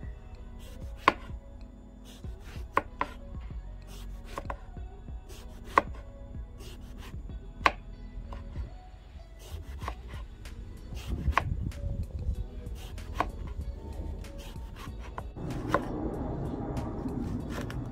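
Chef's knife slicing through a whole eggplant, each cut ending in a sharp tap of the blade on a wooden cutting board. The cuts are irregular at first and come quicker later on, and a steady rushing noise comes in near the end.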